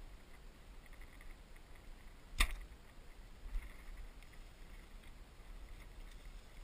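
Compound bow (Obsession Fusion 6) shot: one sharp snap of the string and limbs as the arrow is released, about two seconds in, followed by a fainter knock about a second later.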